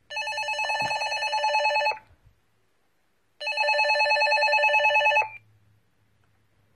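Children's PMR446 walkie-talkie (Fetoo T-388) sounding its electronic call ring tone. Two fast-warbling rings, each about two seconds long, with a pause of about a second and a half between them.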